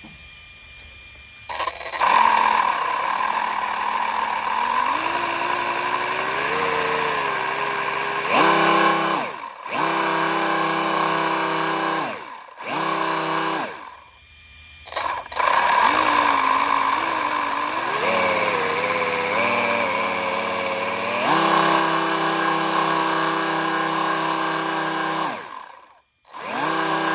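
3D-printed resin twin-screw compressor driven by a brushless electric motor at about 15,000 RPM: a loud, extremely noisy whine made of several stacked tones. The pitch rises as it spins up, holds steady, then drops away as the motor is cut and the rotors wind down, several times over. Deadheaded into a pressure gauge at this speed, it builds only about 1 PSI.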